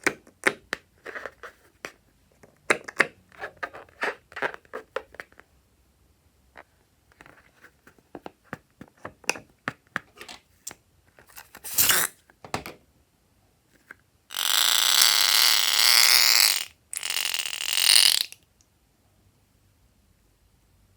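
Air squealing out of a stretched rubber balloon neck in two long, loud, wavering stretches in the second half, the first about two seconds long, the second about one. Before that come scattered small sticky clicks and crackles of slime being handled.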